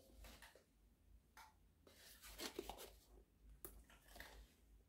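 Near silence: room tone with a low hum and a few faint, brief sounds about halfway through.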